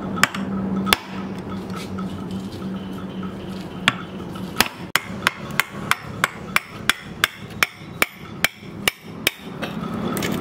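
Steel chisel being struck to chop a mortise into an old wooden beam. A few separate knocks come first; from about halfway there is an even run of sharp strikes, about three a second.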